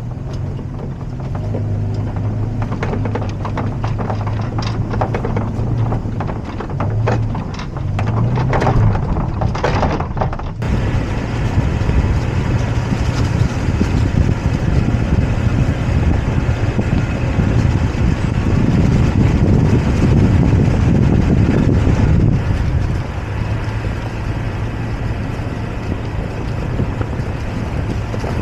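Toyota Tacoma pickup's engine running low and steady as it crawls along a leaf-strewn dirt trail, with crackles and knocks from tyres and body over the first ten seconds. From about ten seconds in, a heavy rumble of wind on the microphone largely covers the engine until near the end.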